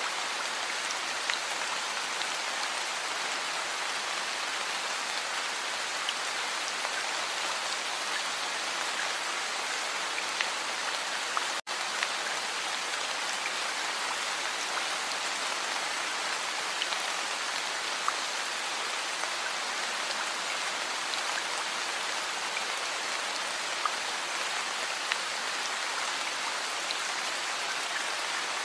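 Heavy rain falling steadily, a dense even hiss with scattered sharper drop impacts. The sound cuts out for an instant about twelve seconds in.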